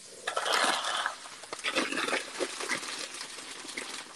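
Diced onion and elephant garlic sizzling in hot oil in a frying pan, stirred with a wooden spoon that clicks and knocks against the pan. A louder rustling rush comes in the first second, with a plastic bag of vermicelli noodles handled over the pan.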